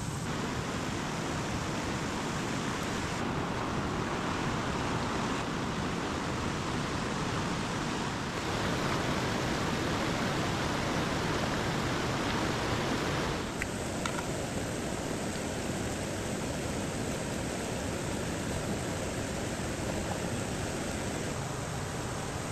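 Rushing water of a mountain stream, a steady hiss that shifts abruptly in tone about three, eight and thirteen seconds in.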